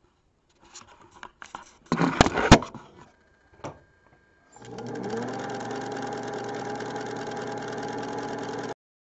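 A few rustles and loud knocks. Then a Singer 201 sewing machine with its beltless pod motor starts up, rises briefly in pitch, and runs steadily until the sound cuts off suddenly near the end.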